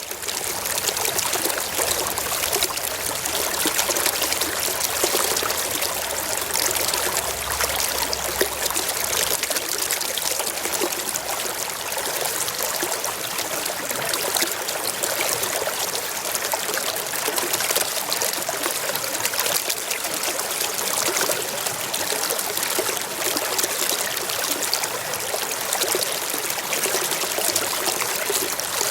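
Mountain stream flowing over rocks: a steady, even rush and trickle of running water.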